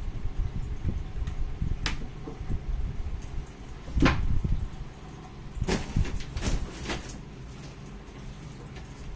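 A few sharp knocks and thuds of objects being handled, one about two seconds in, a louder one near the middle and a quick cluster of three or four shortly after, over a steady low rumble.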